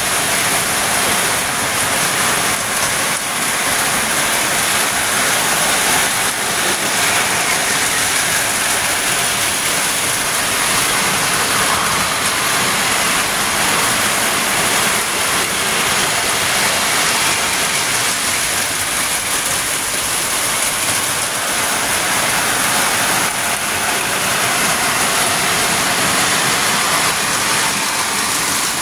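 Lionel pre-war tinplate toy trains running on three-rail tubular track: a steady, loud rolling noise of metal wheels on the rails and the locomotives' electric motors, unbroken throughout.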